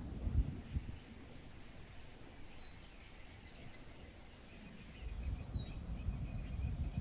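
A bird whistles a short falling note twice, about three seconds apart, over faint fast chirping and a low rumble; a couple of dull knocks come about half a second in, and the rumble grows louder near the end.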